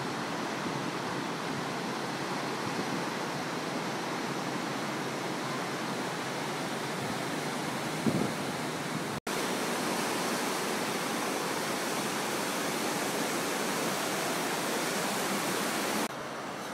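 Steady hiss of small waves breaking and washing up the beach. There is a brief thump about eight seconds in, and the sound drops out for an instant about a second later.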